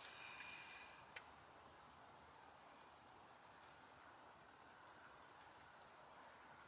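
Near silence, broken by a few faint, very high, thin chirps from a small bird in short runs spread through, and one small click about a second in.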